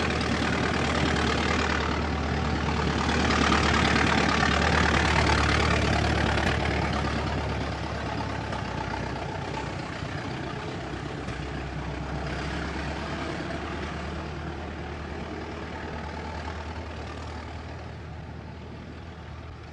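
Old car engine idling steadily, swelling briefly a few seconds in, then gradually fading away.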